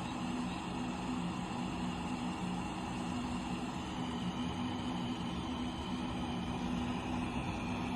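Electric baby-bottle sterilizer and dryer running: a steady low hum with an even hiss over it.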